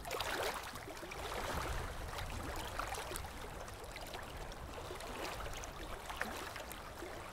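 Steady outdoor background hiss with scattered light clicks and taps.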